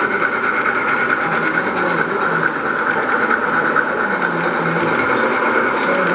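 O scale model train rolling past on two-rail track: a steady whir of the motors and the wheels running on the rails.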